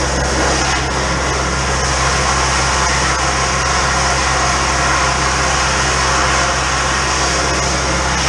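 High-pressure drain jetter running steadily: a constant engine hum under the hiss of water jetting from the nozzle lowered into the manhole.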